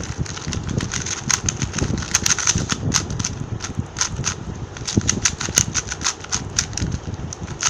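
A MoYu LingPo 2x2 speedcube, freshly lubricated with Maru Lube, is turned rapidly through solves. It makes a fast, uneven run of plastic clicks and clacks as the layers snap round.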